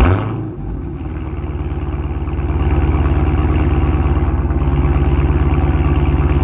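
Car engine running, heard at the exhaust tailpipe: a brief loud rev at the very start, then a steady, even idle that grows a little louder over the first few seconds.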